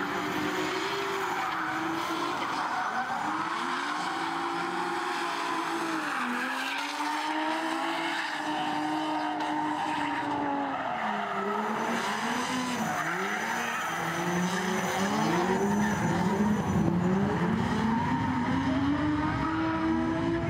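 Two drift cars running in tandem: the engines rev up and down in repeated rising and falling sweeps over the steady hiss and squeal of spinning tyres, getting louder about two-thirds of the way through.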